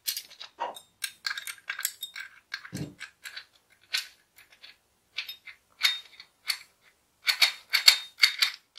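Small metal parts clicking and clinking as an aluminium joint connector is handled and screwed onto an aluminium profile with a hex key, with a soft thump about three seconds in. Near the end comes a quick run of light metallic clicks, about four a second, as the key turns the screw.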